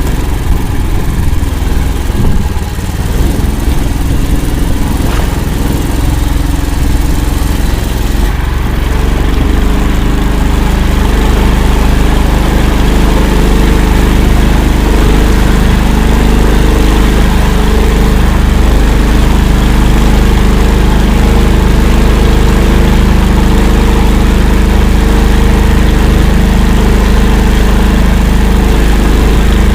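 Engine of an Akula all-terrain vehicle running; about eight seconds in its note settles into a steadier, even run and stays there.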